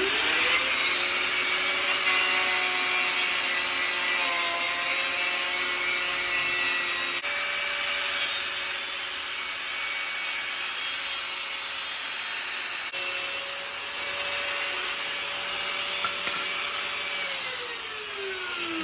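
Power sander working a welded metal latch bracket: a steady motor whine over sanding noise. The motor spins up at the start and winds down with a falling pitch near the end.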